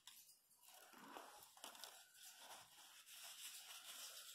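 Faint crinkling and rubbing of a crumpled paper tissue being handled.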